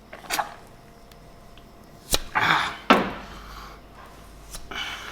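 A few sharp clicks and knocks with brief scraping rustles: old rusty hand tools being handled and set down, ready to go into the ultrasonic cleaner.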